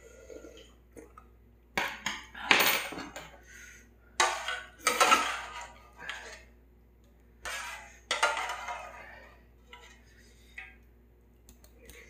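A metal utensil scraping and clinking inside a thin gold-coloured aluminium ramyeon pot, in about six short bursts that come in pairs.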